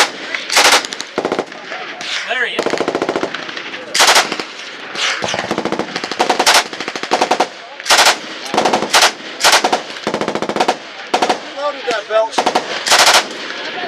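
Belt-fed light machine gun firing full auto in about a dozen short bursts of a few rounds each, with brief pauses between bursts.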